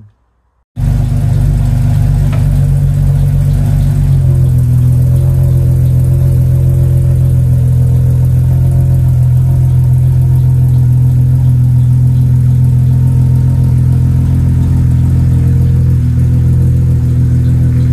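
Jeep Cherokee XJ's engine running steadily and loud, cutting in abruptly about a second in, with a slight change in its note about four seconds in.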